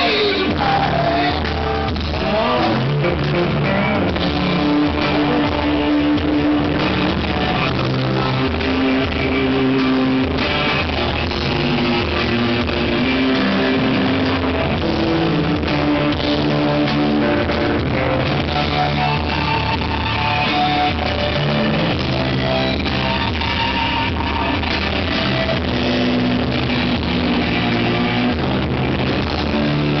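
Loud live rock music: a band playing, with electric guitar to the fore over drums.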